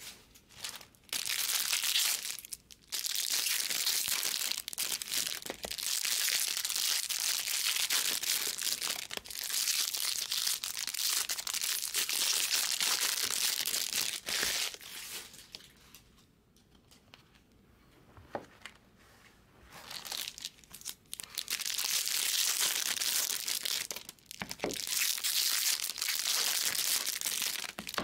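Stacks of trading cards rustling and sliding against each other as they are handled and flipped through. The rustling comes in long spells, with a quieter pause in the middle broken by a few light ticks.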